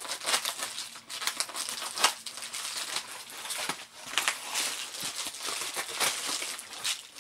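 Packaging crinkling and crackling in irregular bursts as it is handled and cut open by hand, with a sharper crackle about two seconds in.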